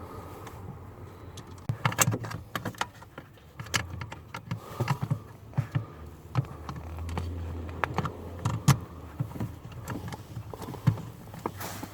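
Irregular clicks, taps and rattles of hand tools and small metal parts being handled while a parking brake switch is screwed back into place with a 7mm tool.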